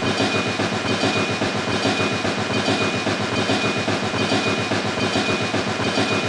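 Small engine of a miniature model tractor running steadily, with a fast, even chugging pulse and a faint thin high whine over it.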